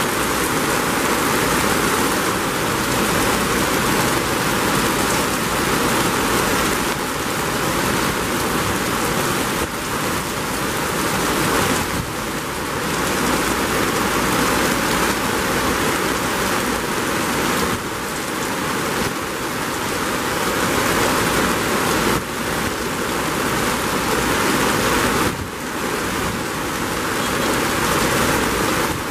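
Heavy rain falling steadily on hard surfaces, a loud even hiss.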